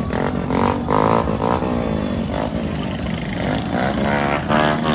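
Motorcycles running in dense, slow traffic: a steady engine drone with other pitched sounds mixed in over it.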